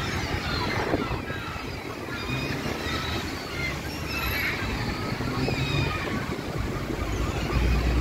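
Steady street-traffic rumble and wind on the microphone, with short calls from a flock of gulls squabbling over food; a low rumble swells near the end.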